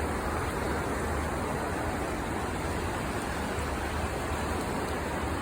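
Steady rushing of river water with a constant low rumble underneath.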